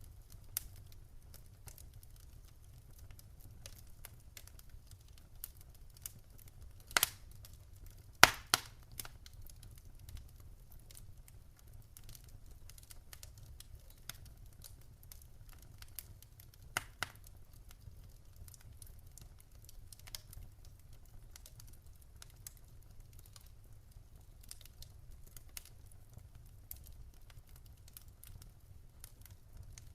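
Wood fire in a fireplace crackling: scattered sharp pops and snaps over a faint low rumble, with the loudest pops about seven to nine seconds in and another near seventeen seconds.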